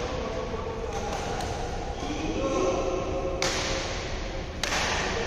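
Indistinct voices in a large indoor sports hall over a steady background rumble, with a brighter hiss coming in suddenly twice in the second half.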